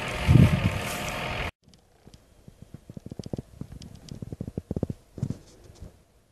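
An engine running, with wind gusting hard on the microphone, cut off abruptly about a second and a half in. After that there are only faint, irregular crackles and taps.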